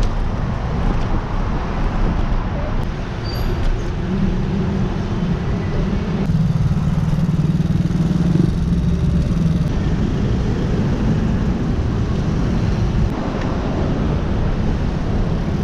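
City road traffic passing close by: car and motorcycle engines running with tyre noise, a steady engine hum standing out from about four to ten seconds in.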